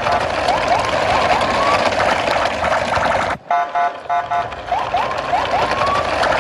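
Electronic siren-like toy sound effect: a burst of rapid beeps followed by a run of short rising chirps, repeating as a loop about every three and a half seconds over a steady hiss.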